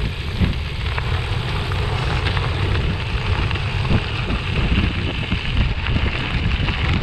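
Wind rushing over the microphone and a steady low rumble of bicycle tyres rolling over gravel at speed, with scattered small crunches and ticks from the stones.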